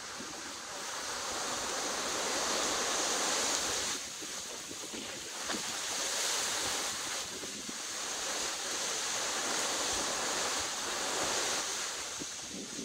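Hurricane-driven wind gusting through tree foliage: a steady rushing noise that swells and eases every few seconds.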